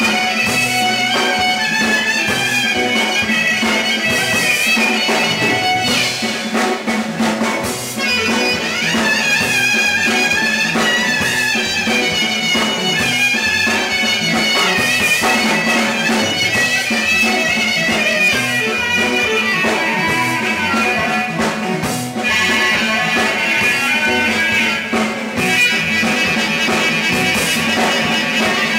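Live Greek folk band playing: a clarinet leads a wavering, ornamented melody over keyboard, guitar and drums.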